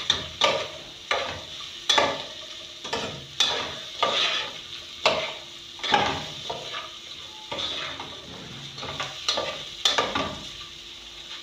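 A utensil scraping and knocking against a pot, about once or twice a second, as chicken pieces are stirred, over the steady sizzle of the chicken frying with freshly added curry.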